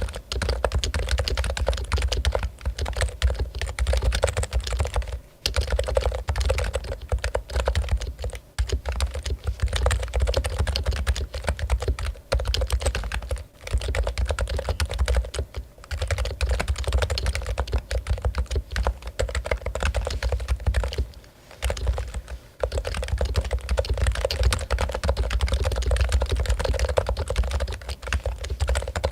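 Fast continuous typing on a Topre Realforce keyboard: a dense run of key presses with electro-capacitive Topre switches, with a few short pauses between bursts.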